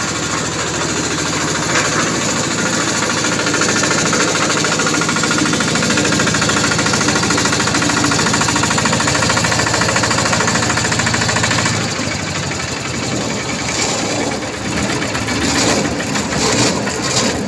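Yanmar TF85R single-cylinder diesel engine running steadily with a fast knocking chug as it test-runs a 500-litre concrete mixer. About twelve seconds in the sound gets a little quieter and rougher.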